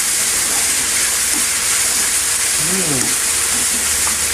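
Food sizzling steadily in a hot frying pan.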